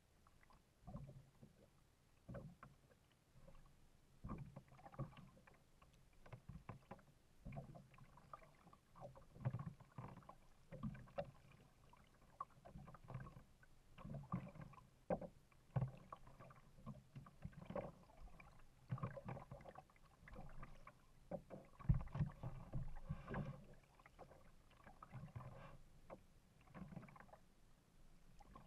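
Faint kayak paddle strokes: the blade dipping and splashing on alternate sides about every second or so, with low knocks and water slapping against the hull.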